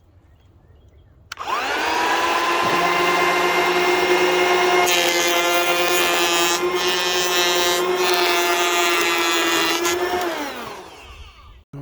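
Ryobi 18-volt cordless electric planer starting about a second in with a rising whine and running steadily. A rough hiss rises over the whine through the middle as it shaves chainsaw-cut cedar. It winds down with falling pitch near the end.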